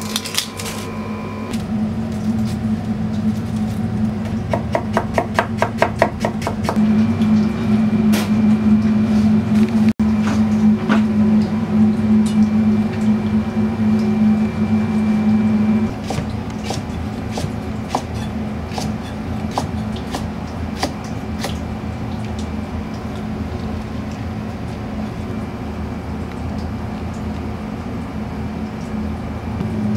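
Kitchen knife chopping on a plastic cutting board: a quick run of about six chops a second a few seconds in, then slower single cuts. A steady kitchen machinery hum runs underneath.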